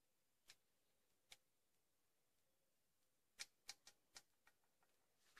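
Faint, scattered clicks and light taps of a small metal pot being tipped and handled over a tuna can while melted wax is poured: two single clicks early, then a quick cluster of about eight in the second half.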